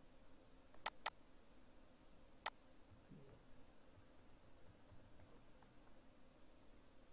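Faint typing on a computer keyboard: three sharp key clicks in the first few seconds, then only very faint taps against near silence.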